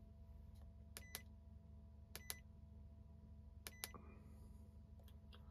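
Quiet key presses on an iCarsoft CR Pro+ handheld scan tool: three short double clicks, roughly a second apart, over a faint steady low hum.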